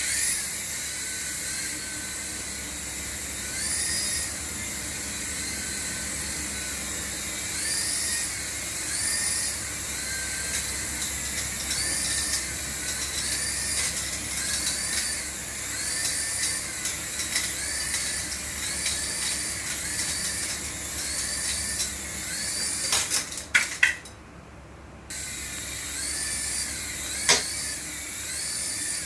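Small electric motor of a radio-control toy whirring at high pitch, its whine rising and falling again and again about once a second. It cuts out briefly about three-quarters of the way through.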